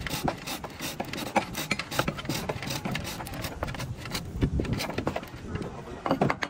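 Hand-powered bow drill boring into a wooden boat plank: a quick, rhythmic rasping of the bit in the wood with each back-and-forth stroke of the bow.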